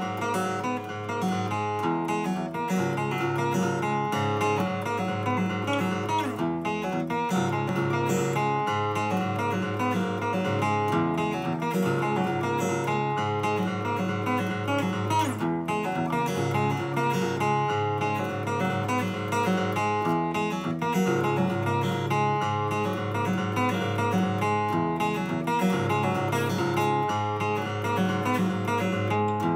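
Acoustic guitar played solo: a repeating chord progression, picked and strummed over steady low bass notes.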